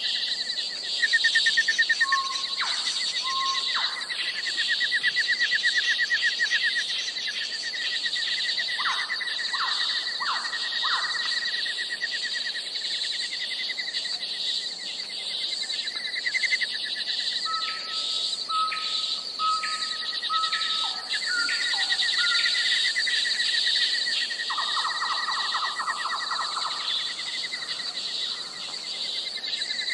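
Tropical forest ambience: insects keep up a steady high drone with a fast pulsing trill, while birds call with short whistled notes, including a run of repeated notes about two-thirds of the way through.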